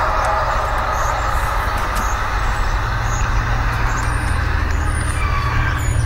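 Loud, drawn-out eerie groaning drone over a deep steady rumble, of unknown origin; the upper part of the drone fades over the first second or so while the rumble continues.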